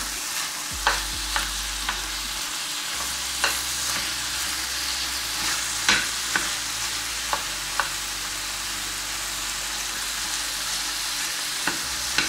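Pork-and-beef mince and chopped onion sizzling steadily in a frying pan. A metal spoon gives about ten irregular sharp clicks and scrapes against the pan as it breaks the mince up.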